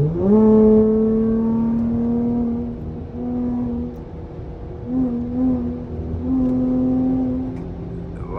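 V6 car engine with its mid-muffler deleted, revving through an uncorked exhaust as the car accelerates. The note climbs quickly at the start, then holds a steady drone, dropping off briefly a couple of times before it picks up again.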